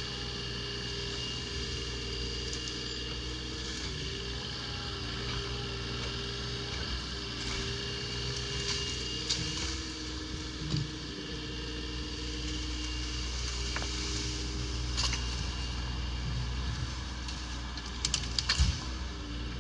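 Bobcat E35 mini excavator's diesel engine running steadily, its tone shifting as the hydraulics work the boom and thumb. Branches crack and snap now and then, with a loud cluster of cracking near the end as the pine tree is swung through the brush.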